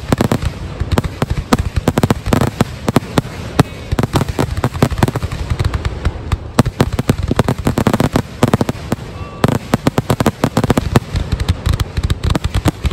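Aerial firework shells bursting in a fast, continuous barrage: a dense run of sharp bangs, several a second, with no pause.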